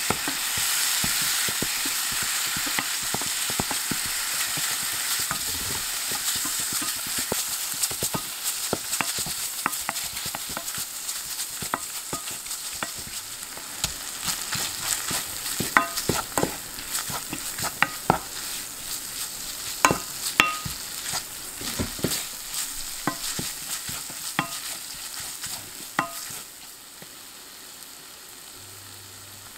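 Minced pork with chili powder in sesame oil sizzling in a nonstick frying pan while a wooden spoon stirs it, with sharp knocks and scrapes of the spoon against the pan. The sizzle fades gradually, and the sound drops off suddenly near the end.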